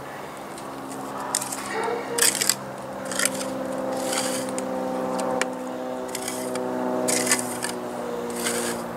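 Hand trowel scraping and smoothing wet hydraulic cement on a chimney cap in short, irregular strokes, about one a second. A steady hum of several tones runs underneath.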